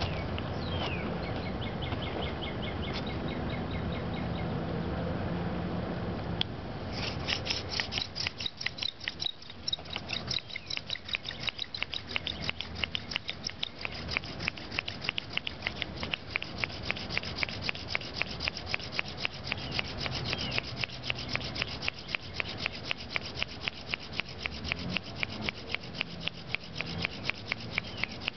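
Floating hand drill: a sotol spindle twisted back and forth in a sotol hearth board, wood rubbing on wood. After about six seconds of steadier noise, the spindle strokes come quick and regular, about four a second.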